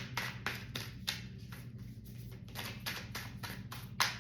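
A tarot deck being shuffled by hand: a quick, even run of soft card flicks, about four a second.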